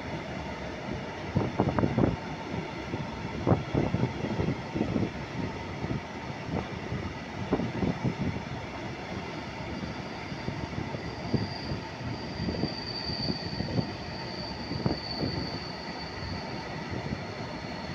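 Freight train of high-sided wagons rolling past close by, the wheels clattering and knocking irregularly over the track. About eleven seconds in, a steady high-pitched wheel squeal joins in and holds.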